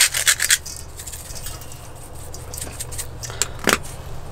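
Sea salt grinder twisted by hand over a steel bowl, a rapid run of gritty scraping clicks that stops about half a second in. After that only low background noise with a few small clicks and one sharper knock near the end.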